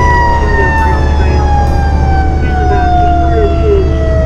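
Fire engine siren winding down in one long, slowly falling wail, over the low rumble of the truck running down the road.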